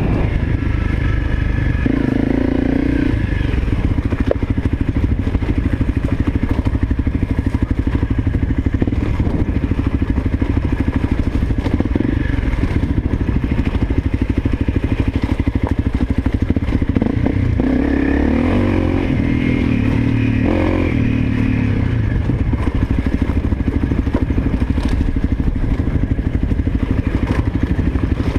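Honda CRF250L dirt bike's single-cylinder four-stroke engine running under way on a rocky trail. The engine note swells briefly about two seconds in and again for a few seconds past the middle.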